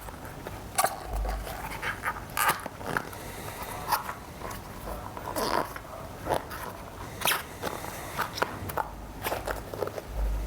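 Rubber inner tube being pushed by hand into a 150 mm pneumatic electric-skateboard tyre: irregular short rubbing and squeaking sounds of rubber on rubber, with small handling knocks.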